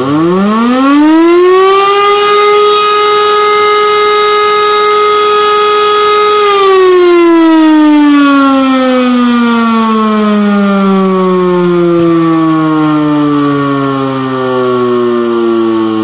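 E57 motor siren sounding the test signal. It winds up to a steady wail in about two seconds and holds it for about four seconds, then is cut off and winds down in a long falling wail. Its rotor grinds badly as it runs.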